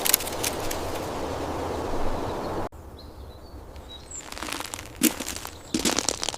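A steady rushing noise with a few sharp clicks cuts off abruptly, leaving faint high chirps. Then come irregular bursts of crunching and crackling.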